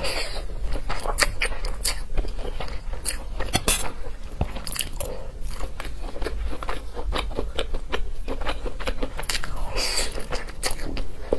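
Close-miked wet chewing and smacking of a mouthful of fried rice and noodles, with many sharp mouth clicks. Noodles are slurped in at the start and again about ten seconds in.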